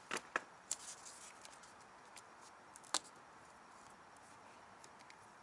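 Green masking tape being laid and pressed down by hand along a car's plastic grill trim: a few short crackles and taps in the first second and one more about three seconds in, over faint hiss.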